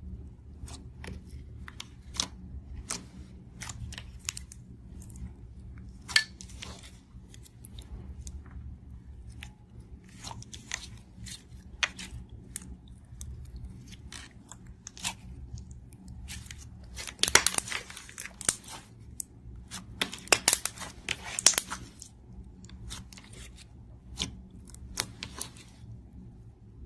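Clear slime being squeezed and stretched by hand, giving scattered sticky clicks and pops. It breaks into two denser runs of crackling, about 17 and 20 seconds in.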